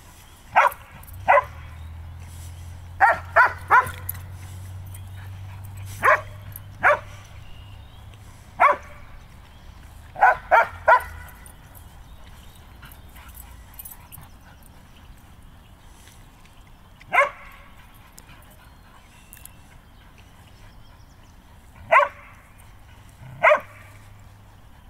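Dog barking in play while chasing: short single barks and quick runs of two or three, about fourteen in all, coming further apart in the second half.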